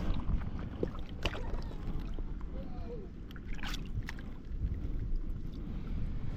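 Low wind rumble on the microphone, with a few sharp clicks or knocks scattered through it.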